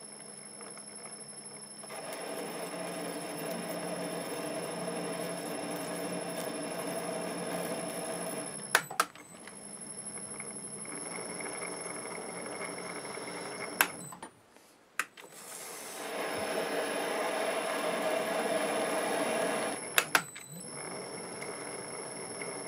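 MN-80 bench lathe running with its screw-cutting feed engaged, single-point cutting an M33×1.5 external thread in repeated passes: three long stretches of steady gear-train noise with a faint high whine, broken by sharp clicks and a short near-silent pause between passes.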